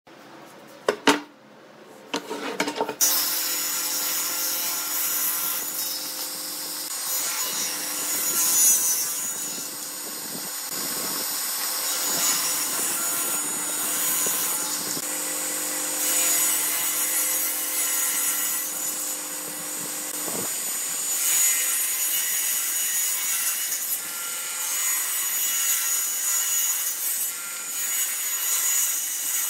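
Table saw ripping a hardwood board lengthwise: the blade cuts with a steady rasp over a constant motor tone, louder and softer as the board is fed through. A few sharp knocks come in the first couple of seconds before the sawing begins.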